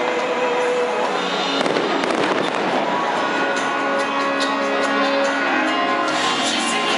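Fireworks crackling and popping densely, many small reports close together, with music playing underneath in held tones.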